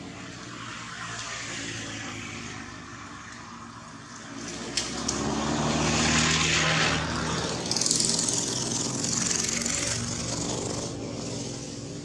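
A motor vehicle passes on the road: its engine hum and tyre noise build from about four seconds in, peak through the middle and fade near the end. Two short clicks sound around five seconds in.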